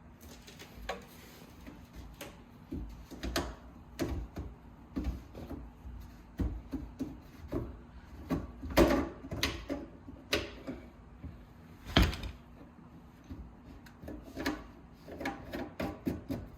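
Irregular knocks, clicks and clatter of plastic sink drain pipe and fittings being handled and fitted under a kitchen sink, with two sharper knocks about nine and twelve seconds in.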